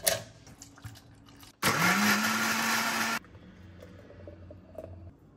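Electric blender with a stainless steel jar blending chopped fruit into a smoothie: the motor spins up with a rising whine, runs steadily for about a second and a half, and cuts off suddenly. Just before it, the fruit clatters into the steel jar.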